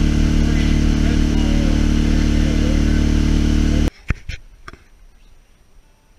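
Boat motor running steadily at speed, heard from inside the boat's covered cabin. It cuts off suddenly about four seconds in, leaving a quiet room with a few sharp knocks.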